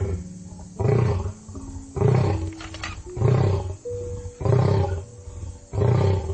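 Big cat roaring: a series of about six deep roars, each about half a second long and a second or so apart.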